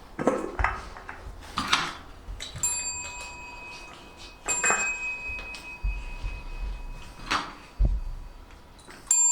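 A handbell rung by a dog, struck about two and a half seconds in and again near the end, each time ringing on with a clear sustained tone, between short rustling movements.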